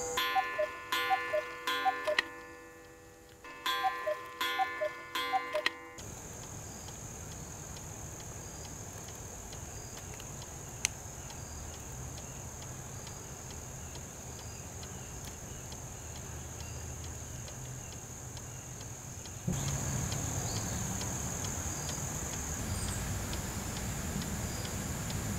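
Mechanical cuckoo clock ticking. For the first six seconds a run of bright plinking notes sounds over it, with a short pause in the middle. From about twenty seconds in, a louder steady background hiss comes in.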